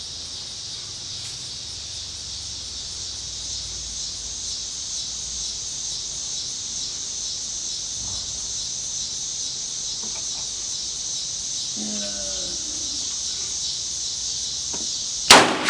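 Steady, pulsing chirping of insects, then a single sharp gunshot near the end.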